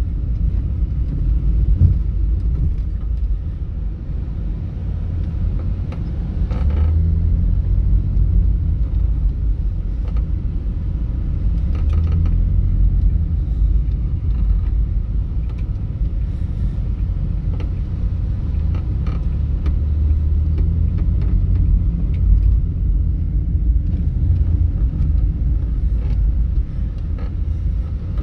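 A taxi moving slowly in traffic, heard from inside the cabin: a steady low rumble of engine and road that swells and eases a little, with faint scattered ticks.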